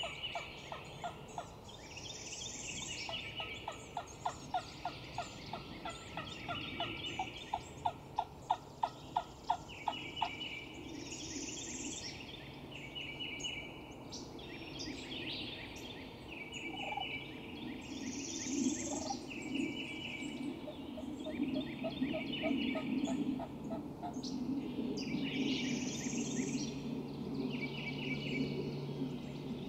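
Eastern wild turkeys calling, with gobbling. There is a run of evenly spaced calls in the first ten seconds, and other birds sing short trilled phrases over it again and again.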